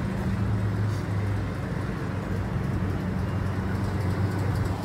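A steady low hum from a motor or engine, over outdoor background noise.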